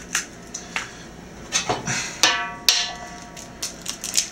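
Raw eggs tapped against the rim of a stainless steel mixing bowl to crack them: several sharp taps, a few of them leaving the bowl briefly ringing.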